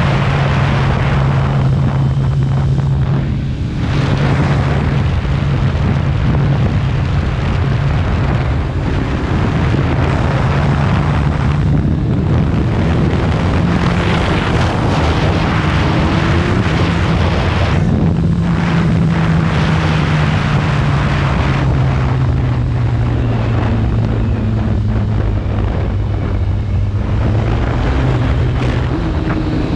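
Kawasaki ZX-14R inline-four sport bike engine running under way, its note rising and falling with the throttle through the ride, over steady wind rush on the microphone.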